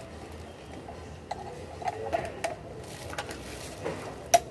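Scattered light clicks and clacks of nylon kitchen utensils with pink handles knocking against their stainless-and-plastic utensil stand as they are handled and lifted off it, with a sharper click near the end.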